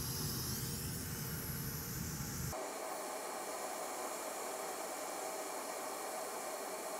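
Steady hiss of blowing air at an electronics repair bench while a capacitor is taken off a donor board. About two and a half seconds in, the tone changes abruptly as a low hum drops out.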